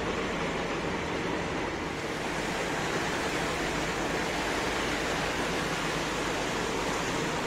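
Steady rushing noise of wind and water with a faint low hum underneath; it turns hissier about two seconds in.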